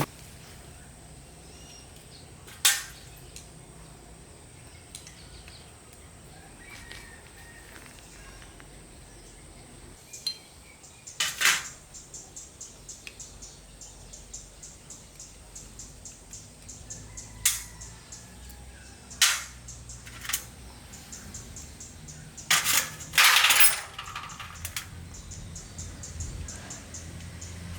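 Hand tools knocking and clinking against motorbike engine parts during repair: scattered sharp knocks, loudest in a cluster a few seconds before the end, over a run of light ticks about three a second from about twelve seconds in.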